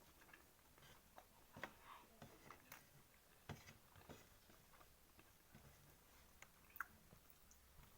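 Faint eating sounds: scattered soft clicks and smacks of chewing and utensils, irregular, with one sharper click near the end.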